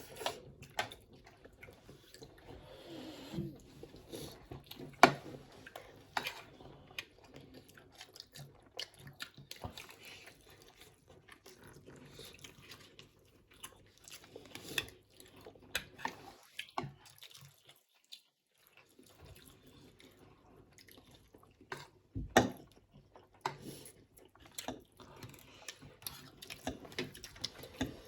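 Noodles being eaten: quiet wet slurping and chewing with scattered small clicks, and two sharper knocks along the way.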